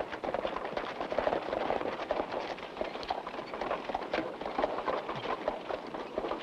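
Horse hoofbeats, a fast, dense run of hoof strikes.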